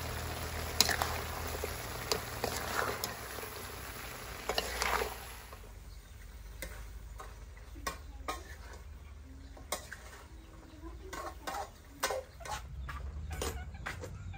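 Chicken feet stir-frying with kroeung in a pan: a sizzle with a spatula scraping and clacking against the pan. The sizzle drops away about five seconds in, leaving scattered knocks and scrapes of the stirring.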